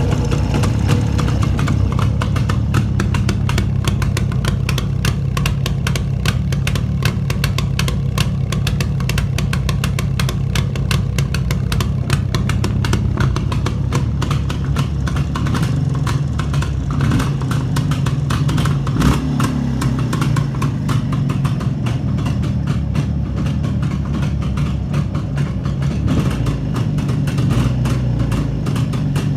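Jawa 350 two-stroke twin motorcycle engine, freshly rebuilt after a major overhaul, running steadily at idle with an even, rapid firing beat.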